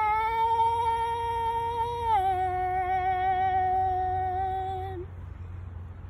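A young woman's solo singing voice holds one long note with no accompaniment, steps down in pitch about two seconds in, and stops about five seconds in.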